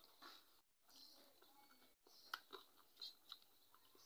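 Faint eating sounds: chewing with small wet clicks, and fingers mixing rice and dal on a steel plate. The sound drops out briefly twice.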